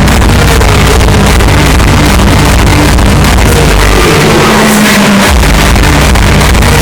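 Hardstyle DJ set over a large festival sound system, recorded loud and distorted, with a steady pounding kick drum. About four seconds in, the kick drops out for roughly a second under a held synth note, then comes back.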